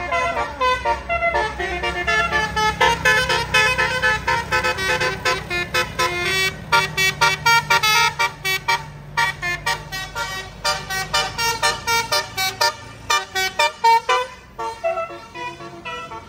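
Tour bus's basuri musical air horn ('telolet') playing a fast tune of short, quickly changing notes, over the low hum of the bus's engine, which stops about thirteen seconds in.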